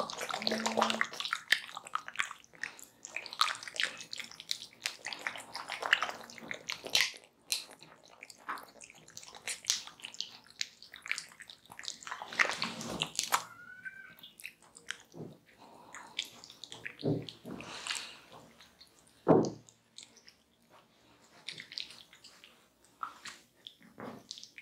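Hands massaging wet blended fruit pulp over bare skin: irregular squelching and rubbing strokes. A short rising squeak comes about halfway through, and a single louder thump about three-quarters of the way in.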